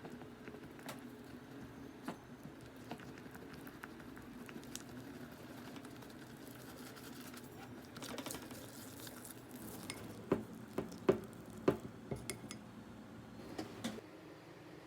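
Kitchen utensils handled against dishes: light scattered clinks and scraping, then a run of sharper clinks about ten to twelve seconds in, over a faint steady hum that stops near the end.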